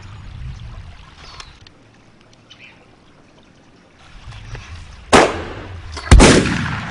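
Two loud gunshot sound effects about a second apart, near the end, the second with a long fading echo, after a quiet stretch with a low outdoor rumble.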